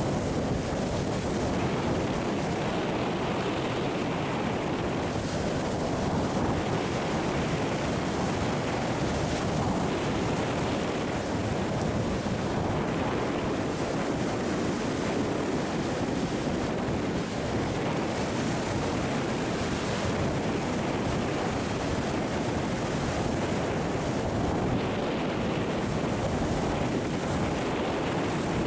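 Rough sea surf breaking and washing over the rocks of a breakwater, a steady unbroken rush, with wind buffeting the microphone.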